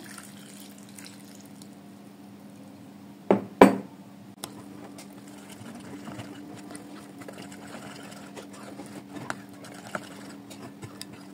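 Liquid poured into flour in a glass bowl, then a wire whisk stirring the runny batter, its wires clicking and scraping against the glass in quick irregular ticks. A loud knock comes about three and a half seconds in, and a steady low hum runs underneath.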